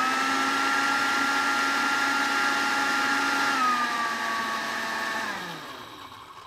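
Countertop blender motor running at full speed, puréeing chopped carrot with liquid into a creamy dressing. Its whine steps up in pitch at the start, drops a little about three and a half seconds in, then falls away as the blender is switched off and spins down about five seconds in.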